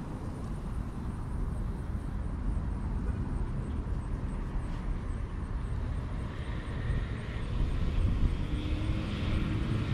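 Steady low outdoor rumble that grows louder in the last few seconds, with faint higher sounds above it near the end.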